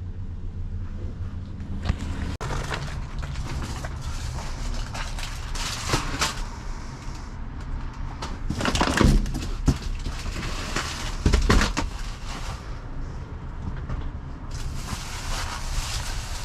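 Rummaging through dumpster contents: plastic bags and produce crinkling and rustling, with a few louder knocks and crunches about nine and eleven seconds in, over a steady low hum.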